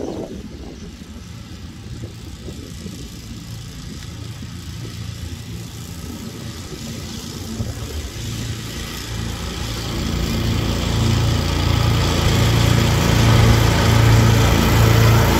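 Kingcat ride-on mower running as it drives toward the listener, its engine faint at first and growing steadily louder from about eight seconds in, with a pulsing low hum.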